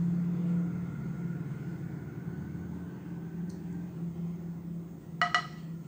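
Steady low hum in a kitchen, then about five seconds in, a serving plate set down on the counter clinks twice in quick succession with a brief ring.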